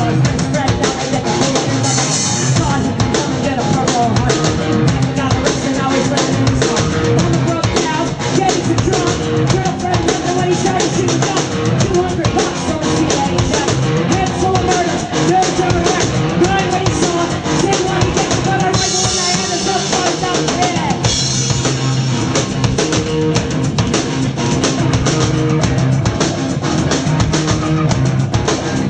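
A live rock band playing an instrumental passage, led by a driving drum kit with bass drum and guitars, with cymbal crashes about two seconds in and again around two-thirds of the way through.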